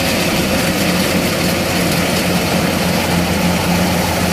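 Diesel engine of a tracked rice combine harvester running steadily under load while the machine labours through deep mud, bogged down. The engine note stays level throughout.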